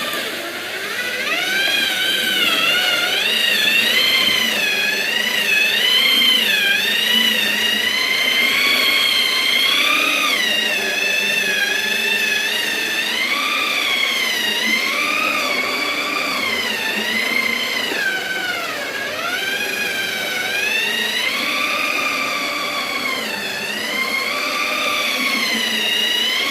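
Handheld electric power tool smoothing wood, its motor whine continuous and wavering up and down in pitch as it is worked over the wood.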